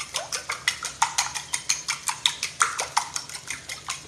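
A fork beating raw eggs in a small ceramic bowl, clicking against the bowl in a quick, steady rhythm of about six strokes a second.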